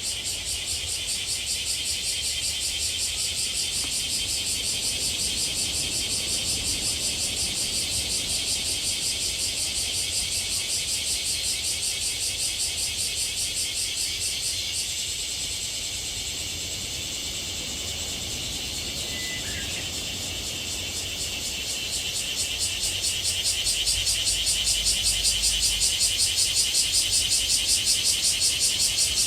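Cicadas buzzing in chorus: a dense, high, rapidly pulsing drone that eases off for a few seconds past the middle and then swells louder again.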